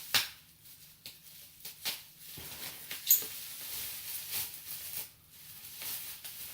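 Packing tape and wrapping being pulled off and handled: soft rustling with a few sharp clicks and knocks, the loudest about three seconds in.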